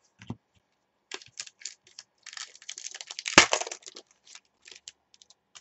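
Foil trading card pack crinkling as it is handled and torn open, with one sharp loudest rip about three and a half seconds in.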